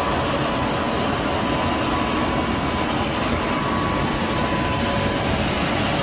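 Private jet's turbine running steadily on the ground: an even rushing noise with a thin, constant whine.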